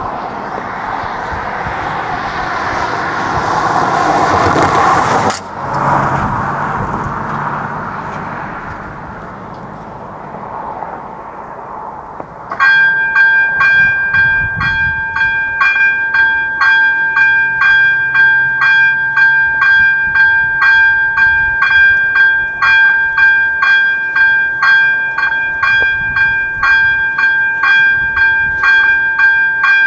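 A vehicle passes, its noise rising and then fading. About twelve seconds in, the level crossing's ZV 02 electronic warning bell starts: a loud, high ringing tone struck about twice a second, which signals that a train is approaching.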